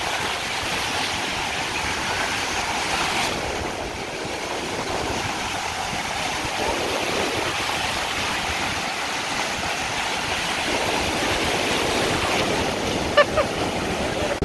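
Ocean surf washing onto a beach: a steady rush of breaking waves. A brief sharp sound stands out near the end.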